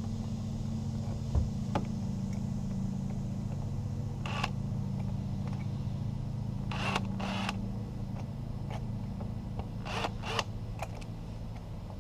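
Electric drill running slowly as a small pilot bit bores into a broken stud, a steady low hum that fades about eight seconds in, with several short scraping rasps.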